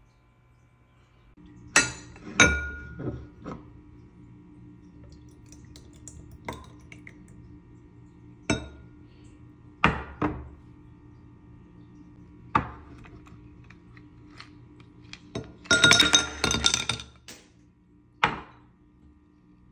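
Glassware clinking and knocking in separate strikes, then a quick cluster of glassy clinks as ice cubes drop into a can-shaped drinking glass, with one more clink after it.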